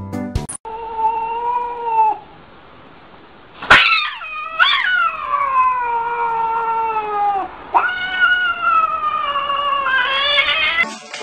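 Domestic cat yowling in three long drawn-out calls that sink slowly in pitch; the second starts with sharp upward swoops. It is a defensive caterwaul from a cat standing with its back arched.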